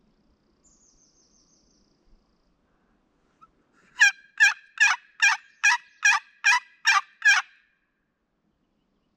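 Turkey yelping: nine loud, evenly spaced notes, about two and a half a second, starting about four seconds in, each note dropping in pitch. A songbird twitters faintly and high about a second in.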